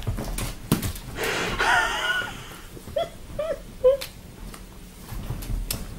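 A long-haired cat chasing its tail on a sofa, with scattered soft thumps and scuffles of paws on the cushion. About three seconds in come three short voice-like calls.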